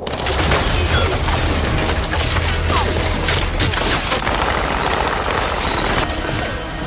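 Dense, continuous barrage of rapid gunfire mixed with crackling fireworks going off, with a deep rumble under the first half and a few short whistles.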